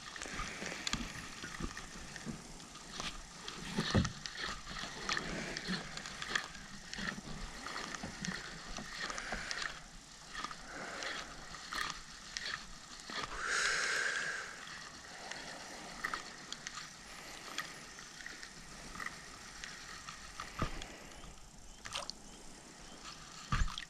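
Fishing reel being cranked, a light mechanical clicking and whirring, with scattered small knocks.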